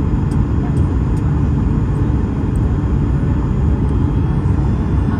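Steady low rumble of a Boeing 737's engines and rushing air, heard inside the passenger cabin on final approach.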